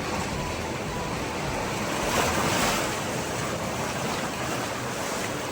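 Ocean surf washing on the beach, a steady rush of water with a wave swelling louder about two seconds in, and wind on the microphone.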